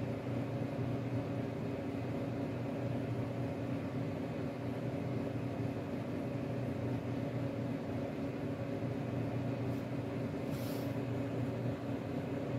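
A steady low machine hum, like a fan or small appliance motor running, with a brief soft hiss about ten and a half seconds in.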